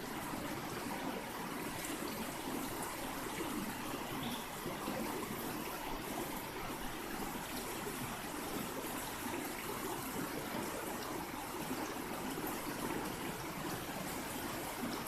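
Steady rush of a flowing river, an even water noise with no breaks.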